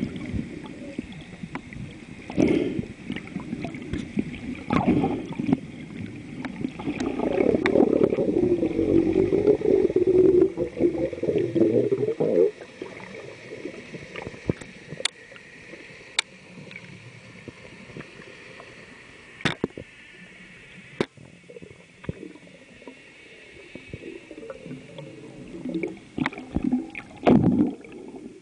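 Muffled underwater water noise: gurgling and rushing water against a camera housing, loudest in a long stretch that drops off suddenly about halfway through. Scattered sharp clicks come through it.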